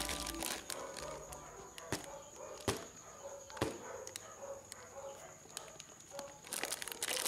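Handling sounds from a zippered fabric case being opened over plastic-wrapped toys: soft rustling with a few sharp knocks, the clearest about two to four seconds in.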